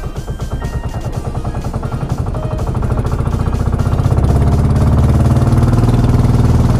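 Small boat engine running with a rapid, even beat, growing louder over the first four seconds and then holding steady.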